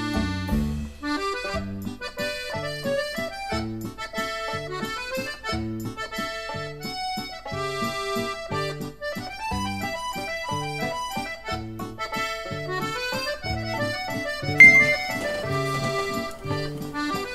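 Background music: a comical accordion solo, a melody over a steady alternating bass-and-chord accompaniment. Near the end a brief bright high tone sounds, the loudest moment.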